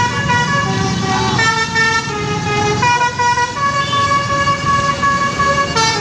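A bus's Basuri telolet horn playing a tune of several stepped notes, the longest held for about two seconds near the end, over the low rumble of motorcycle and bus engines.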